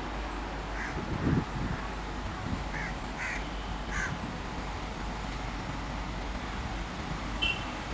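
Crows cawing several times in short calls over the steady low rumble of an electric locomotive slowly drawing into the platform. A dull thump about a second in is the loudest sound.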